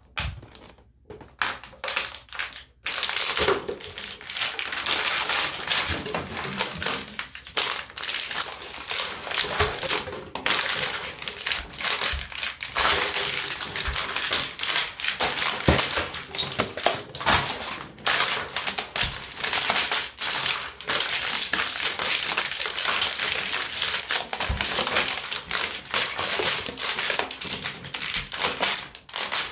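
Empty plastic water bottles crackling and crunching under bare feet. A few separate crunches at first, then from about three seconds in a dense, continuous crackle as the bottles are trampled.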